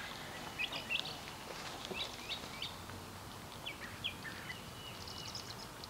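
Scattered short bird chirps and quick whistled calls over faint, steady outdoor background noise.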